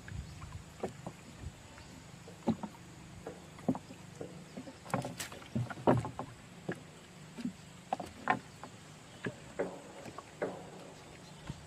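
Irregular light splashes and knocks in water, coming every half second to second, with a few louder ones near the middle.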